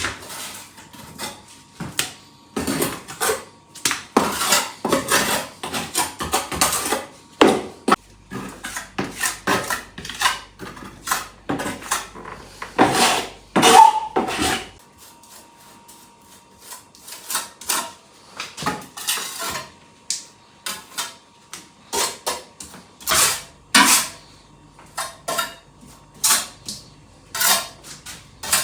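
Irregular clinks and knocks of hard objects being handled, some with a short metallic ring.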